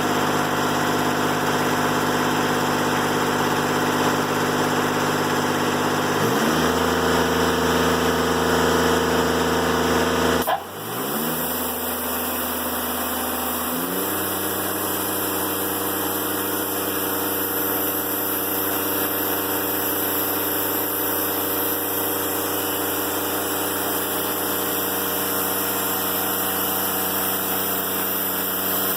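Diesel engine of a Timberking 1400 sawmill running steadily. About six seconds in its note steps down lower, there is a brief sudden dip near ten seconds in, and near fourteen seconds it climbs back up and holds a steady higher speed.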